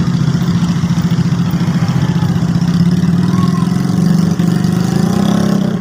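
Bus engine running loudly and steadily close by.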